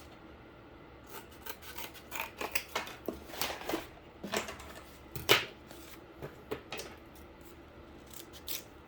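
Scissors cutting cardboard: a run of irregular snips and rasping strokes, one louder snip about five seconds in.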